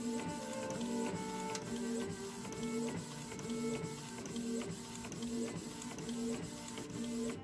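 Canon inkjet printer printing a page: the print-head carriage shuttles back and forth in an even rhythm of about two passes a second, with light clicks as the paper feeds out.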